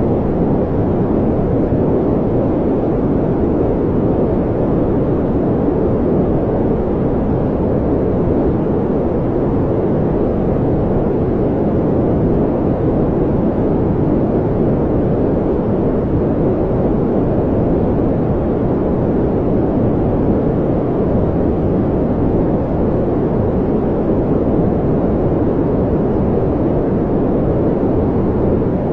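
Brown noise: a steady, even, deep rumbling hiss with most of its weight in the low range, unchanging throughout.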